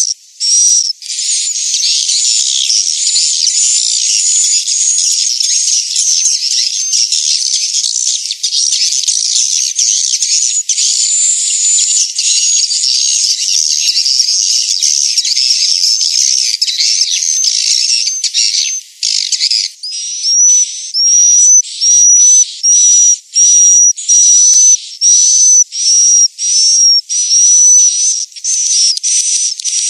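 Recorded swiftlet calls of the kind played as a swiftlet-house lure ('inap panggil' sound, to call birds in and keep them roosting): dense, high-pitched twittering chatter that, about two-thirds of the way through, gives way to a string of separate short high chirps, about two a second.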